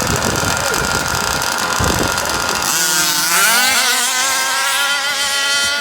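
Small two-stroke engine of a gas-powered 1/5-scale RC car running. About three seconds in, it climbs in pitch as it revs up, then holds a high steady note.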